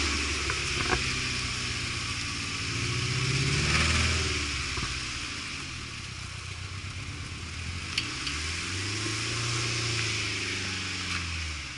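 An off-road 4x4's engine working under varying throttle. It revs up and eases off twice, with a couple of short knocks.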